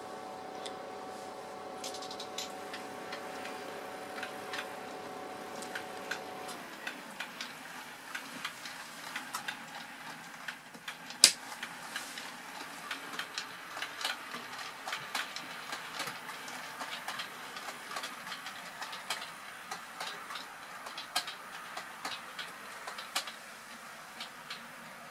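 OO gauge model freight train of Pilchard wagons running over the layout's track, its wheels clicking irregularly over the rail joints, with one louder click near the middle. A steady hum runs underneath for the first six seconds or so, then stops.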